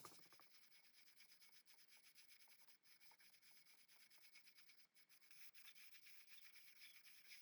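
Near silence with a faint rubbing or scraping noise and small scattered ticks.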